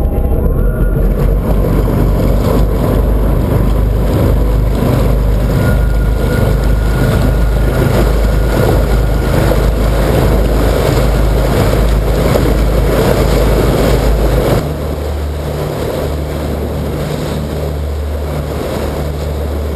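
Carver 356 cruiser under way at speed: a steady engine drone mixed with rushing wake water and wind buffeting the microphone. The sound drops suddenly in level about two-thirds of the way through.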